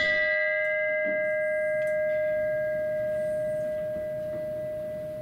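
A bell struck once, ringing on with a clear, steady tone that slowly fades, rung in remembrance just after a name of the departed is read.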